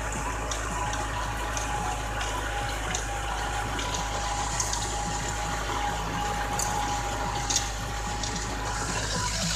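Zetor 7745 tractor's four-cylinder diesel engine running steadily under load, pulling a three-furrow reversible plough, with a steady high whine over the engine note.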